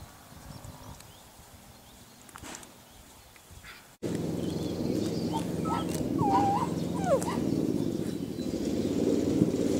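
Puppy whimpering in short, high, wavering squeaks over a steady low drone, after a quiet opening of about four seconds.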